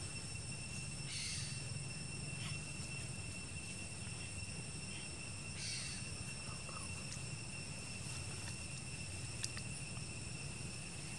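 Steady, high-pitched insect drone with a faint low hum beneath it. There are two brief rustles, about a second in and again near six seconds, and a few faint clicks near the end.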